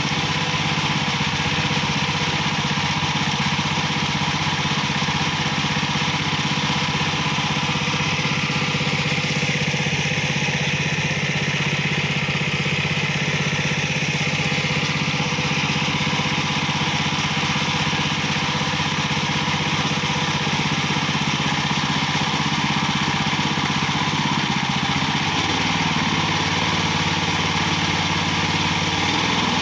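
Engine of a portable water pump running steadily while pumping water out of a channel, its note shifting slightly near the end.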